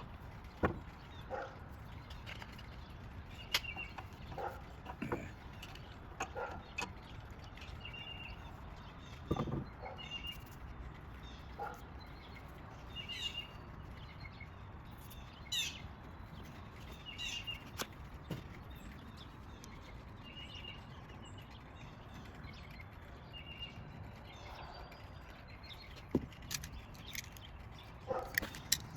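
Scattered light clicks and knocks of small parts and tools being handled during carburetor work, with short high chirps, a bird calling now and then.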